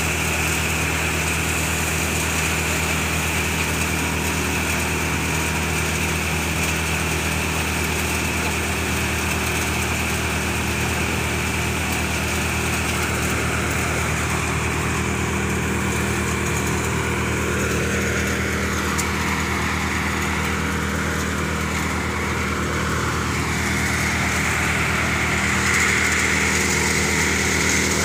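Chickpea threshing machine running steadily under load as dry plants are fed in: a continuous engine-driven mechanical hum with a steady drone and hiss, getting slightly louder near the end.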